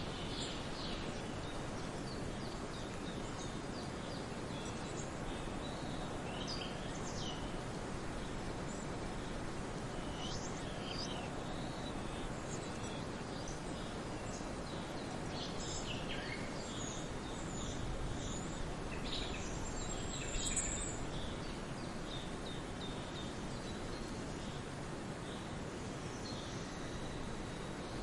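Forest birds chirping and calling in short, scattered notes over a steady background hiss, with one brief high whistle about twenty seconds in.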